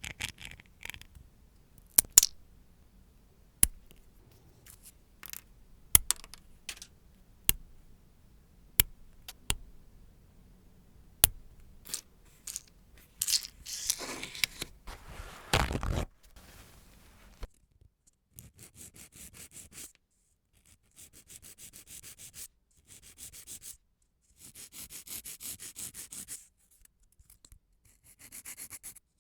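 Manicure work on nails: a series of sharp clicks and taps, then a spell of louder scraping, and in the second half quick, rhythmic rubbing strokes in short spells, as of a nail being filed or buffed.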